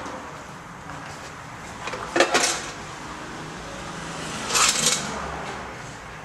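Metal parts and tools clattering and scraping while the transmission valve body is worked up into the case, in two short bursts about two and a half seconds apart.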